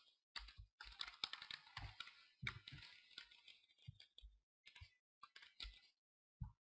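Quiet typing on a computer keyboard: irregular quick runs of keystrokes, some with a dull thump, and a last single keystroke near the end.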